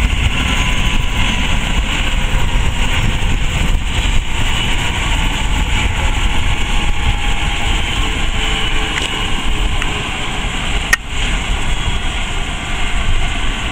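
Eurocopter helicopter running on the ground: a steady turbine rumble with a high whine that slowly falls in pitch. A single sharp click comes near the end.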